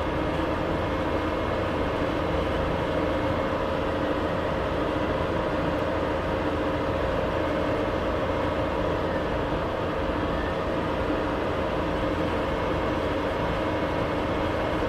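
Steady whistle and drone of an aircraft's jet engines: several held tones over a rumbling hiss.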